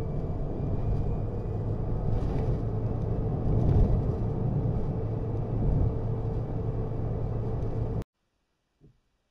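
Low road and tyre rumble heard inside the cabin of a Citroën Ami electric car on the move, with a steady hum under it; it stops abruptly about eight seconds in.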